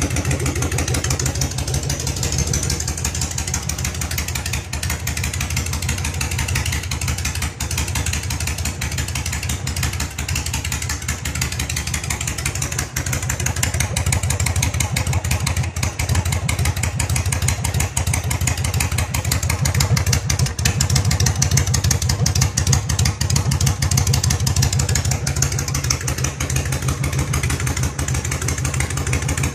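2002 Yamaha V-Star 1100's air-cooled V-twin idling steadily with no mufflers, exhaust pulsing loudly straight out of the open header pipes.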